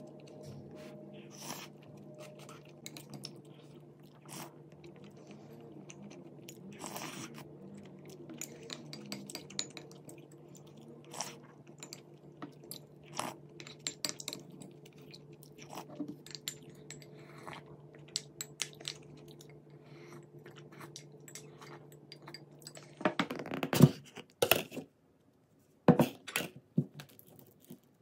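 Close-up eating sounds: chewing and crunching, with a wooden spoon and wooden chopsticks clicking and scraping against a ceramic bowl, over a steady low hum. Near the end the hum stops and a few louder knocks and scrapes follow.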